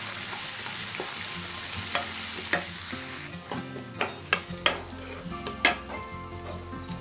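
Chopped onion, green peas and green chilli frying in oil in a pan, sizzling as a wooden spatula stirs them. About three seconds in the sizzle falls away and the spatula knocks and scrapes against the pan in a quick run of sharp clicks.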